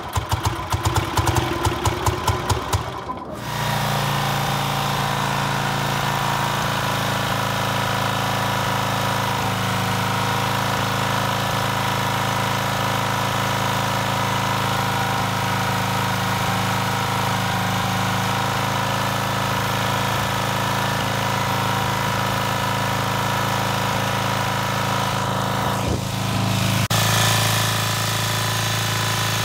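Motorcycle engine running: for the first three seconds or so it fires as a rapid string of separate knocks, then after a break it settles into a steady, even idle. The level rises slightly near the end.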